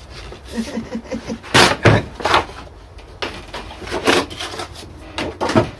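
Irregular knocks and handling noises from a new jigsaw and its packaging being handled and set down on a work surface, with the loudest thuds about two seconds in.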